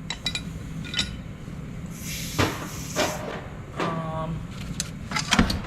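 Irregular metallic clinks and knocks of wrenches, sockets and bolts being handled while 19mm mounting bolts and brackets come off a truck's front differential, with one short ringing clank about four seconds in.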